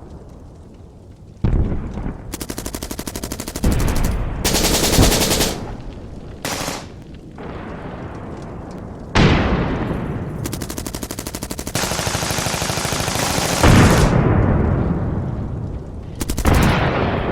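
Battle sound effect: repeated bursts of automatic machine-gun fire, each lasting one to two seconds, broken by short gaps. A few louder single bangs, about a second and a half in, near the middle and near the end of the longest burst, ring out and trail off in echo.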